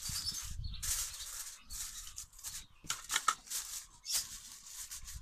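Aluminium foil crinkling in irregular bursts as hands press and crimp it around the edges of a baking tray, with the sharpest crackles about three seconds in.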